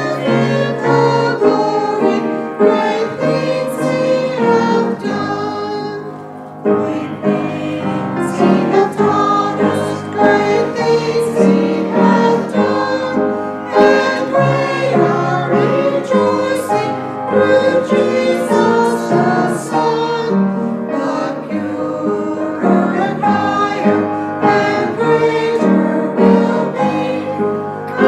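Congregation or choir singing a hymn with instrumental accompaniment, piano among it.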